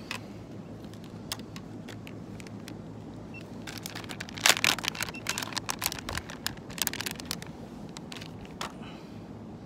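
Crackling and clicking as small fishing tackle is handled while a soft-plastic lure is rigged on a jig head. The clicks come in a dense, louder cluster about halfway through, over a steady low background rumble.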